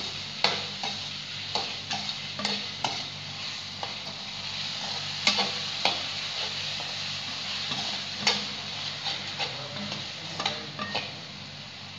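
Thin potato sticks frying in oil in a kadhai with a steady sizzle, while a metal spatula stirs them, clinking and scraping against the pan at irregular moments.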